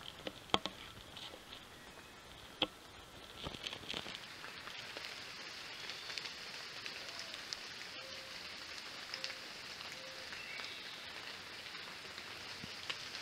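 Small woodland creek trickling over rocks: a steady, faint water hiss. A couple of sharp clicks come within the first three seconds.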